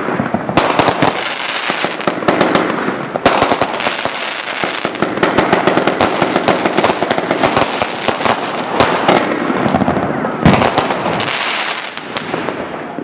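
Aerial fireworks bursting in a rapid, nearly unbroken run of bangs and pops, with a loud burst about ten and a half seconds in.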